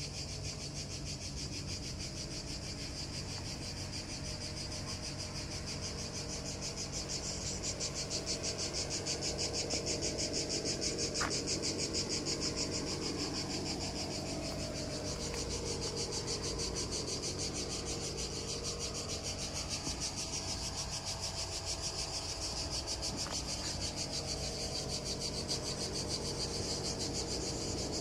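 Continuous high, rapidly pulsing chirring of insects, with a steady low hum underneath.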